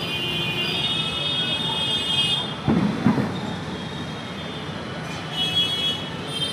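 Pressure washer running with a high-pitched whine over a steady hiss, used to clean an air conditioner. Two short thumps come about three seconds in.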